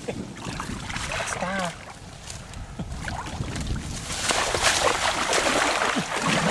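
Shallow muddy floodwater splashing and sloshing as hands grab and churn in it. The splashing grows much louder about four seconds in and keeps up after that.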